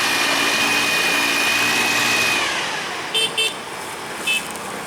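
A vehicle engine running with a steady high whine, dying away about halfway through. Then three short horn beeps: two in quick succession, then one more about a second later.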